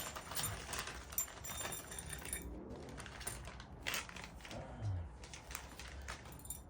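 Small parts and packaging being handled: light rustling with scattered clicks and rattles, and one sharper tick about four seconds in.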